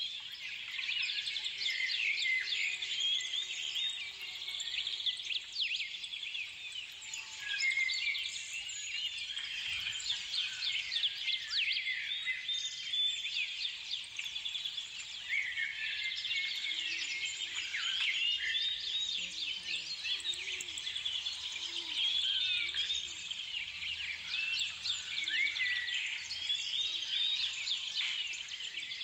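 Many small birds chirping at once, a dense, unbroken stream of short high chirps, with a faint steady hum underneath.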